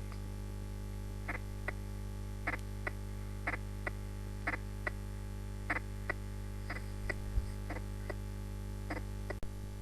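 Recorded heart sounds heard through a stethoscope: a markedly split first heart sound followed by the second heart sound, repeating about once a second as short paired beats over a steady hum. A split first heart sound like this is typical of right bundle branch block or right ventricular volume or pressure overload.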